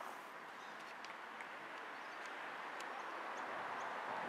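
Outdoor ambience beside a football pitch: a steady hiss, getting a little louder near the end, with a few faint, short high chirps.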